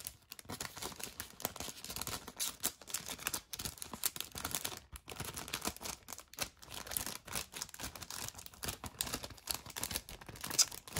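Clear plastic film sleeve crinkling and crackling as a DVD case is pushed and worked into it, with many small irregular clicks of the plastic case.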